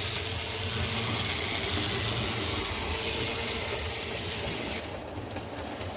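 Model railway locomotive running round the track: a steady motor hum with wheels rolling on the rails. The higher rushing part thins about five seconds in.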